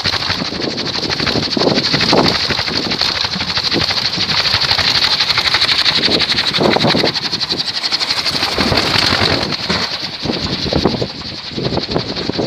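Large kitanah-wood kolecer (Sundanese wind propeller) spinning in the wind on its bamboo pole, giving a steady, rapid rumbling whir that eases off in the last couple of seconds.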